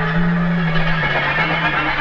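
Live psychedelic rock band playing: a low held note that shifts pitch slightly twice, under a dense, noisy wash of instruments.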